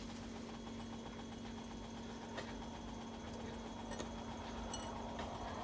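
A steady low hum with one unchanging pitch, and a few faint soft clicks and rustles as hands press and roll a ball of sticky rice in ground black sesame in a ceramic bowl.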